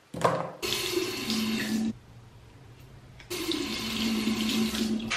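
Bathroom sink tap running, water splashing into the basin and over a toothbrush head held in the stream. It comes in two stretches, the first about a second and a half long, then again from just past the three-second mark, each with a steady low hum beneath the splashing.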